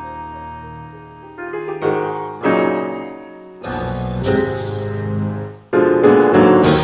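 Background music with piano or electric keyboard, its notes growing louder and busier, with a loud swell about six seconds in.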